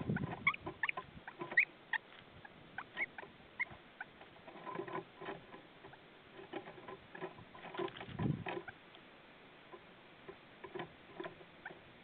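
Grey-headed woodpecker pecking and scratching at wood close to the microphone: irregular light taps and clicks, with a couple of dull bumps at the start and about eight seconds in. A few short high chirps of small birds come in over the first few seconds and again near the end.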